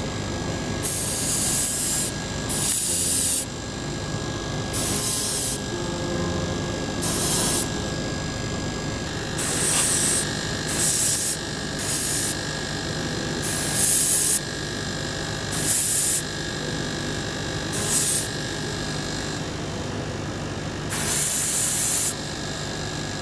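Airbrush spraying paint in eleven short bursts of hiss, each about half a second to a second long, through a thin piece of scouring sponge held against a model aircraft to mottle the paint.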